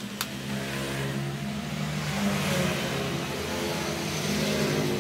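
An engine running, its pitch rising and falling a little, with a couple of light clicks about a quarter second in.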